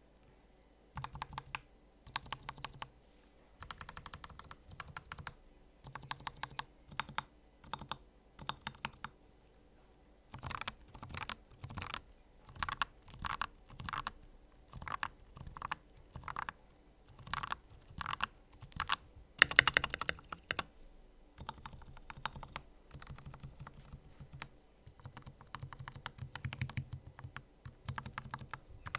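Typing on an AKKO 5108S mechanical keyboard with Akko CS Lavender Purple tactile switches and Macaw ASA-profile keycaps: quick runs of keystrokes separated by short pauses, with the loudest burst a little before the middle.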